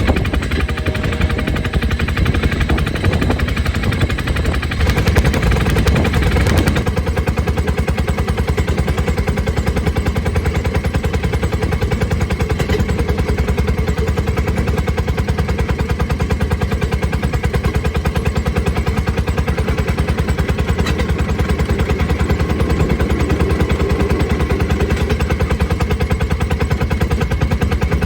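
Rail speeder's small engine running at speed, its exhaust a steady, rapid popping, with a louder, fuller stretch about five to seven seconds in.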